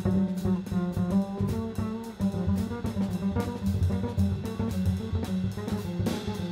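Jazz double bass played pizzicato: a run of plucked notes, loudest in the mix, with a drum kit keeping time on its cymbals.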